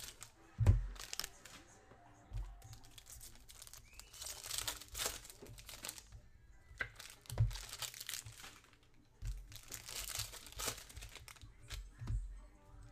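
Foil trading-card pack wrappers crinkling and tearing as the packs are opened and the cards pulled out, in repeated short bouts, with a few dull knocks, the loudest about a second in.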